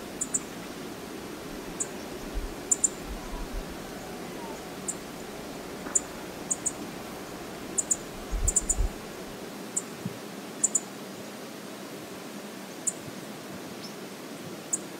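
Steady outdoor hiss of wind and water at a lakeshore, with scattered short, high-pitched ticks. A few low rumbles of wind on the microphone come in the first half.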